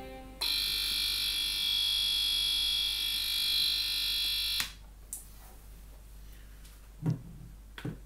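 Electric egg cooker's buzzer sounding a loud, steady, high buzz to signal that the water has boiled off and the eggs are done; it starts just after the beginning and cuts off suddenly after about four seconds. A couple of soft knocks follow near the end.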